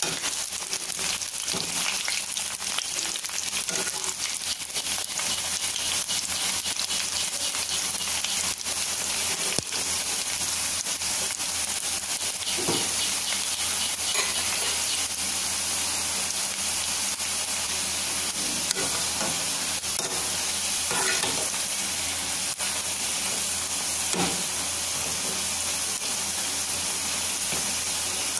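Gram-flour onion pakodas deep-frying in hot oil in a metal kadai, a steady sizzle. Now and then there are brief clicks and scrapes from a slotted spoon stirring them in the pan.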